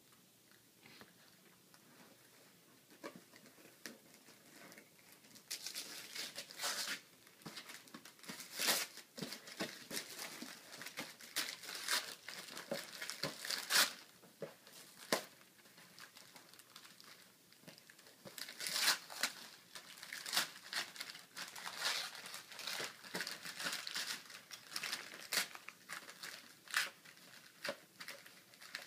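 Gift-wrapping paper being torn and crumpled by hand as a present is unwrapped. It starts about five seconds in and goes on as a long run of irregular rips and crinkles.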